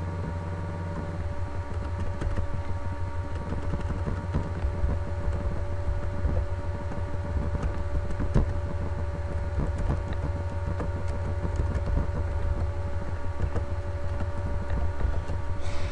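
Computer keyboard typing: quick, irregular key clicks, over a steady low electrical hum and rumble.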